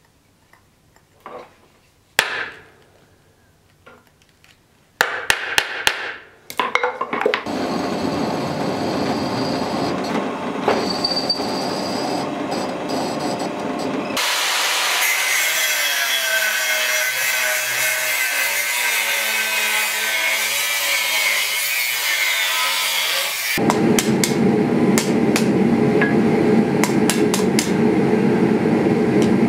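Metalworking in steps: a few light clicks and knocks, a quick run of sharp strikes, then a steady machine noise. A pedestal drill press follows, running and boring into a steel bar. Near the end comes a steady low rushing noise with a hammer striking red-hot steel on an anvil over it.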